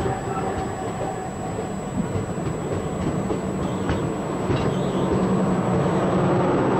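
Indian Railways express passenger coach running at speed: a steady rumble of wheels on the track, with a few sharp clicks over the rails, growing a little louder in the second half.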